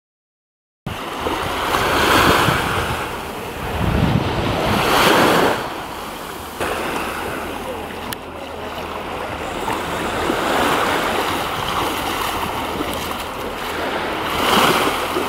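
Small waves washing onto a sandy shore in shallow water, swelling louder three times, with wind rumbling on the microphone.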